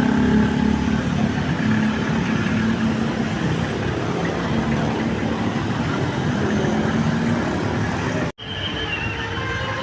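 Vehicle engine and road noise, a dense, steady rumble and hiss. It breaks off abruptly about eight seconds in and resumes with a slightly different mix.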